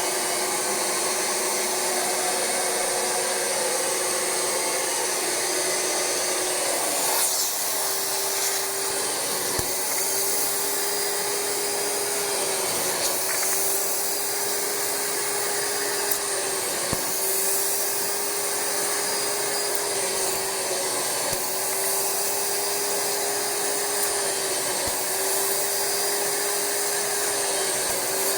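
Rug Doctor carpet cleaner's vacuum motor running steadily while its upholstery hand tool is worked over fabric, its hum dipping briefly about every four seconds.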